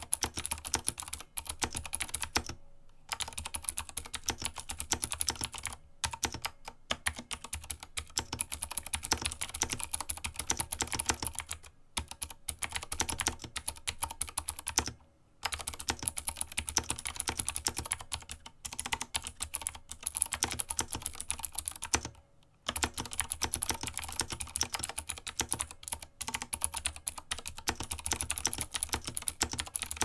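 Touch-typing on an IQUNIX A80 Explorer 80% mechanical keyboard with clicky Cherry MX Blue switches, sitting on a bare desk: a fast, continuous patter of keystrokes broken by a few brief pauses.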